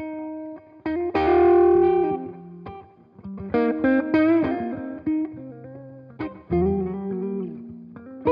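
1980 Greco EG-500 Les Paul-style electric guitar with Maxon humbucking pickups, played through a Headstrong Royal Reverb amp: a strummed chord about a second in, then picked single notes and chord fragments that ring on.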